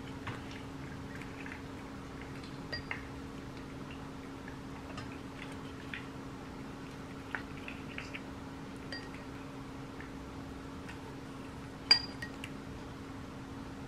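Light, scattered clicks and clinks of wooden chopsticks against a ceramic bowl and a wire cooling rack as pieces of fried chicken are lifted and dipped into sauce, with one sharper clink near the end. A steady low hum sits underneath.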